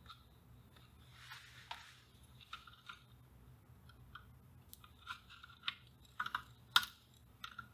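Faint scraping, then a run of small sharp clicks and crunches as flush cutters and a soldering iron tip work at capacitor leads on an old solder-side circuit board. The sharpest click comes near the end.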